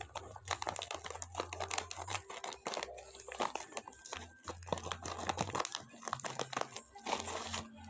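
A plastic snack pouch crinkling and crispy keripik kriwil chips crackling and crunching as they are handled and eaten: a dense run of irregular crackles.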